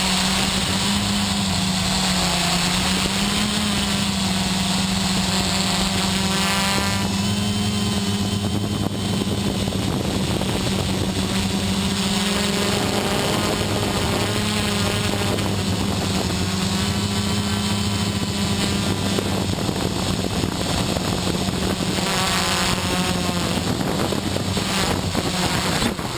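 XP2 quadcopter's electric motors and propellers running, heard from the camera mounted on the craft: a steady buzzing drone whose pitch wavers a little as the throttle changes, with hiss over it.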